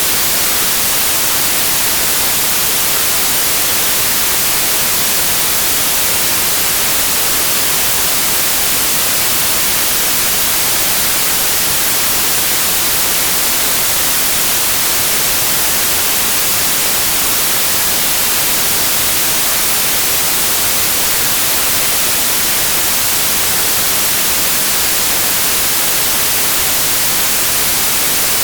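Continuous white noise for tinnitus masking: a steady, loud, even hiss that is strongest in the high pitches and never changes.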